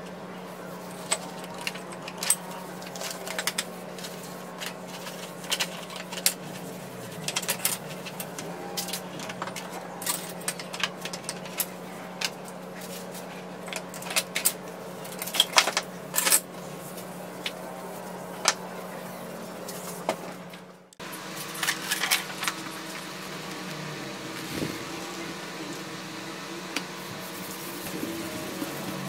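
Flat metal bars clinking and clicking as they are handled and set down on a plywood board, with sheet rustle, over a steady low hum. After a brief drop-out about two-thirds through, softer rubbing of a cloth pressing a PVC sheet onto plywood, with a few light clicks.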